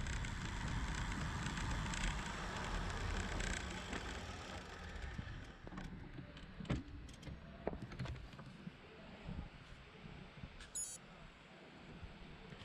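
Wind rushing over the action camera on a bicycle coasting downhill, dying away about five seconds in as the bike slows. After that come faint road noise and scattered light clicks, with a brief high squeak near the end.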